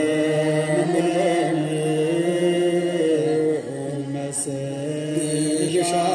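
Men's voices chanting an Ethiopian Orthodox mezmur (hymn), long held notes broken by ornamented turns.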